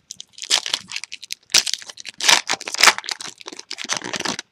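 Foil wrapper of a Topps Chrome baseball card pack being torn open and crinkled by hand, in a run of irregular crackly bursts that stop near the end.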